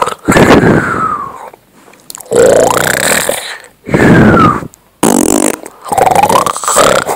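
Loud snoring and farting noises in four bursts of about a second each, their pitch sliding up and down.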